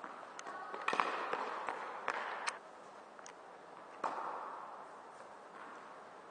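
Tennis ball impacts, racket strikes and bounces, each a sharp pock with a short echo off the walls of an indoor tennis hall. The loudest comes about a second in, two lighter ones follow around two seconds in, and another comes about four seconds in.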